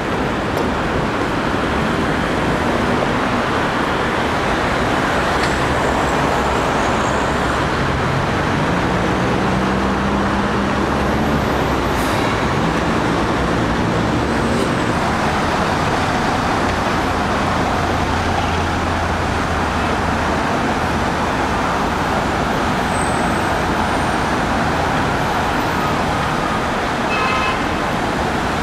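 Steady road traffic on a busy multi-lane city street, with cars passing. About a third of the way in, a vehicle's engine rises in pitch as it pulls away.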